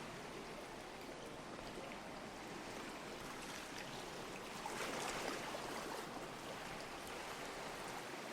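Small waves washing against a harbour pier: a steady wash of water, with one louder wave splashing in a little past the middle.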